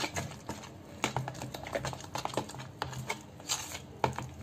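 A steel spoon stirring thick semolina batter in a plastic bowl: quick, irregular clicks and scrapes of the spoon against the bowl.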